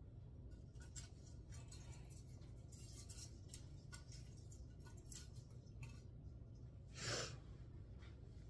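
Faint rustling and light clicks of Christmas tree branches as a small ornament is hung on them, then a short breathy exhale about seven seconds in.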